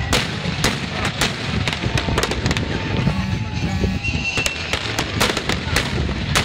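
Fireworks display: aerial shells bursting in quick succession, a dozen or so sharp bangs, some in tight clusters, over a continuous low rumble.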